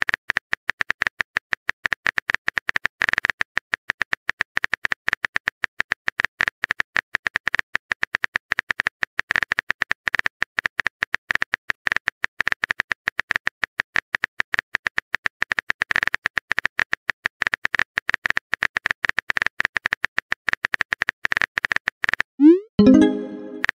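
Chat-app typing sound effect: a rapid, uneven run of keyboard clicks while a long message is typed out. The clicks stop about a second before the end, followed by a short rising bloop as the message is sent.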